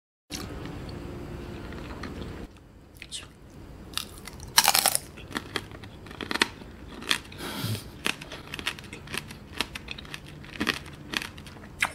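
Tanghulu candied green grapes bitten and chewed: the hard sugar shell breaks with a loud crunch about four and a half seconds in, followed by many sharp crackling crunches of chewing.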